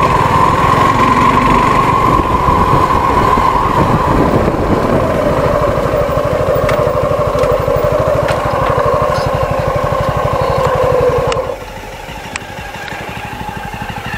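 Suzuki V-Strom SX 250's single-cylinder engine running under way. Its note steps down in pitch about five seconds in and holds steady, then falls off sharply in level a little past eleven seconds to a quieter low running sound.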